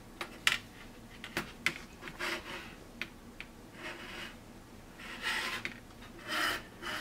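Fingers handling and turning a plastic 1/48 scale P-51D model aircraft over a cutting mat: a handful of light plastic clicks and taps, with four short rubbing sounds of skin against plastic.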